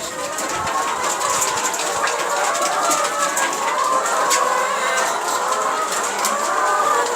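A flock of laying hens calling and clucking together in a dense, steady chorus, with scattered sharp clicks.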